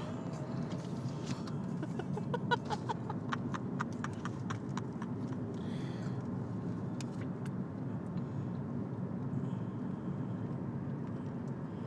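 Steady road and engine noise inside a moving car's cabin. From about one to five seconds in, a quick run of sharp clicks, about four a second, with a few more scattered later.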